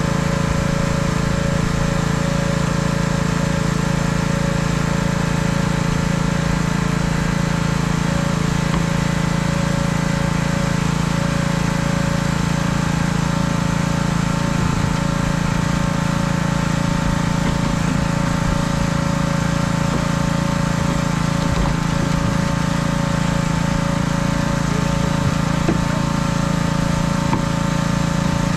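An engine running steadily at one constant speed, a continuous drone that holds the same pitch throughout.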